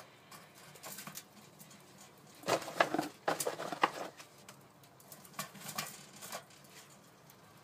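Wooden sticks knocking and scraping against a steel hobo stove's feed opening as they are pushed into the fire: a quick cluster of sharp knocks about two and a half seconds in, then a few lighter knocks about two seconds later.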